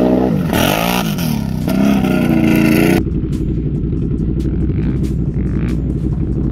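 Can-Am Outlander 850 ATV's V-twin engine revving, its pitch rising and falling several times over about three seconds. About halfway through it changes abruptly to steadier low running with scattered clicks and knocks.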